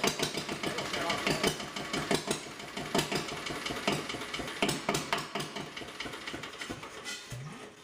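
1930s Onan single-cylinder diesel genset running, with a sharp knock on every firing stroke. It fades and slows near the end.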